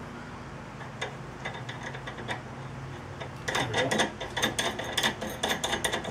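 Quick ratchet-like clicking, several clicks a second, starting about three and a half seconds in, from hand work on a car's new inner tie rod at the steering rack. A steady low hum runs underneath.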